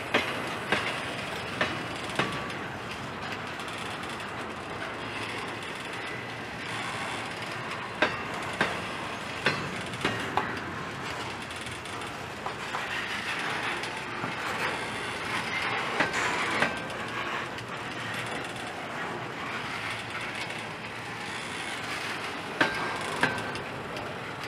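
Double-stack intermodal train's well cars rolling past on steel rails: a steady rolling noise of wheels on track. Sharp metallic clicks and clanks, often in pairs, come every few seconds.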